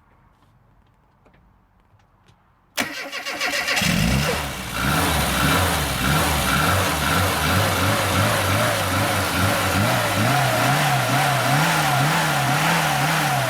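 A car engine cranks about three seconds in, catches and runs, its pitch wavering up and down in a regular wobble toward the end.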